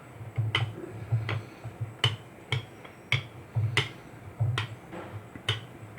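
Rolling pin working a potato-stuffed paratha on a rolling board, with a sharp click or knock every half second or so as it goes back and forth.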